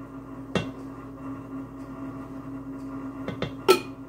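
A few sharp knocks of a silicone spatula against a glass sauce jar while the sauce is scraped out, then a louder clack near the end as the glass jar is set down on the countertop, over a steady low hum.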